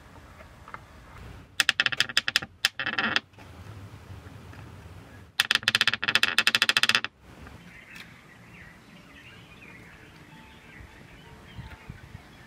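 Screws being turned into wood with a hand screwdriver: two spells of rapid clicking and creaking, each about a second and a half long. Faint birdsong follows.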